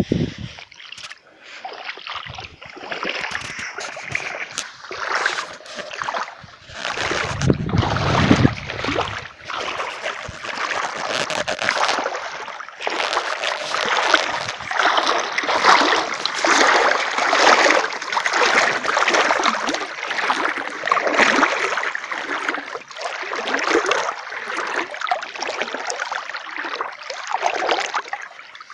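Water splashing and sloshing in quick, irregular bursts, with a heavier low splash about eight seconds in.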